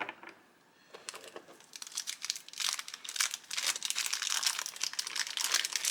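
Thin plastic packaging crinkling and rustling as it is handled and opened. It starts about a second in and goes on in quick, irregular crackles, after a single click at the start.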